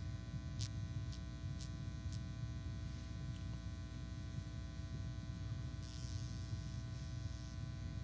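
Steady electrical hum and buzz in the recording's sound chain, made of a stack of steady tones over a low rumble, with a few faint clicks about every half second in the first two seconds.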